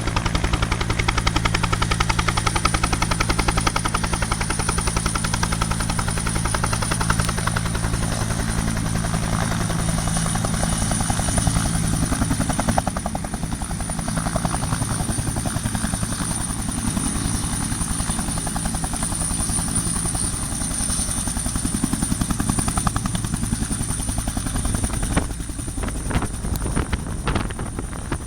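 Helicopter running close by: fast beating of the rotor blades with a steady high whine over it. It grows a little quieter and more uneven in the last few seconds.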